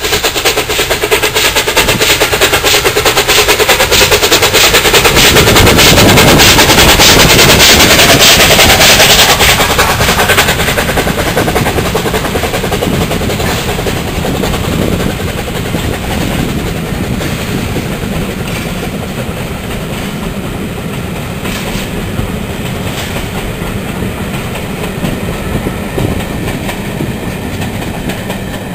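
BR Standard Class 8 Pacific steam locomotive No. 71000 'Duke of Gloucester' passing at speed, its rapid exhaust beats loudest during the first ten seconds. The sound then falls off as the train of coaches rolls by, with the occasional click of wheels over rail joints.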